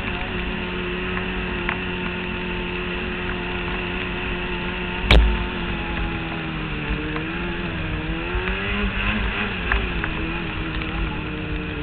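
Polaris XC800SP snowmobile's two-stroke twin engine running steadily at trail speed. There is one sharp knock about five seconds in. A couple of seconds later the engine pitch dips and climbs back up.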